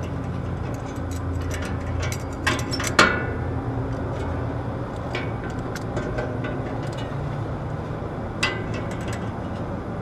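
Vice grips working a stubborn nut on an air-conditioner condenser fan blade hub: a handful of sharp metal clicks and knocks, the loudest about three seconds in, over a steady low hum.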